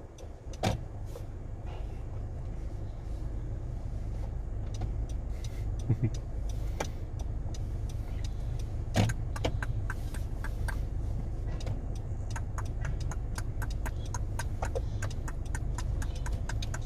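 Car engine idling, a steady low hum heard from inside the cabin, with a few louder knocks and many small clicks that come faster in the second half.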